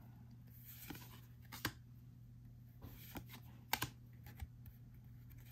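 Faint, scattered clicks and soft taps of Pokémon trading cards being handled and flipped through one by one, a few separate clicks with gaps between them.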